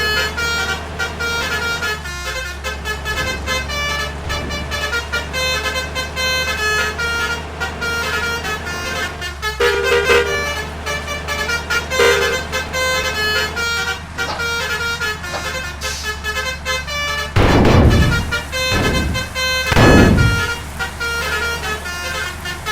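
Bus melody horns ('om telolet' and basuri horns) playing quick tune-like runs of notes over a steady low engine hum, with three loud low surges about three quarters of the way through.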